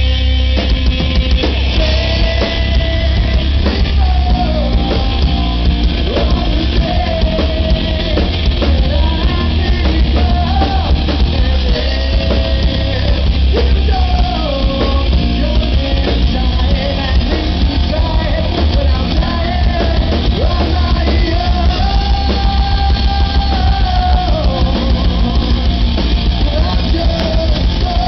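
Live metal band playing loud: electric guitars, bass and drum kit, with a male singer singing long held lines over them from about two seconds in. The bass end is very strong.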